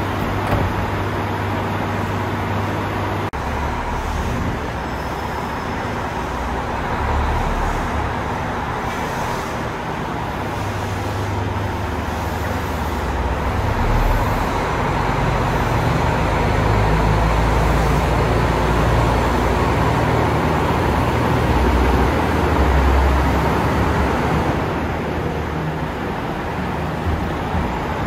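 KiHa 66 diesel railcars running at a station platform, a steady deep engine drone whose low note shifts and swells for several seconds in the second half.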